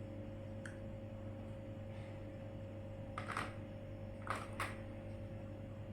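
A few light clicks and knocks of kitchen utensils, the clearest about three seconds in and a pair just after four seconds, over a steady low hum.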